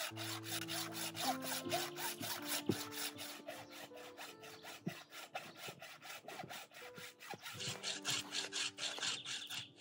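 Hacksaw cutting through the bone of a raw leg of meat in quick, even back-and-forth strokes, about four to five a second.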